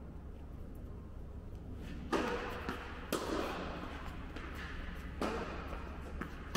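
Tennis ball struck back and forth by racquets in a rally: four sharp hits, one to two seconds apart, each ringing on in a large indoor tennis hall, over a steady low hum.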